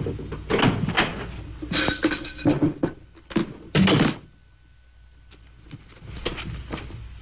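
A room door shutting with a thunk, followed by a run of knocks and thumps as a satchel is put down on a table and its catches clicked open.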